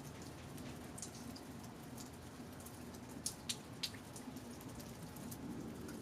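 Steady rain with individual drops dripping close by. Three louder drips land in quick succession a little past halfway.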